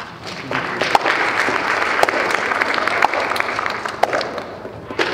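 Audience applauding, a dense patter of clapping with a few sharper claps standing out about once a second, dying away near the end.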